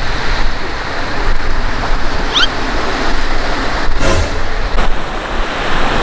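Sea surf washing onto a sandy beach, a loud, steady rush of breaking waves.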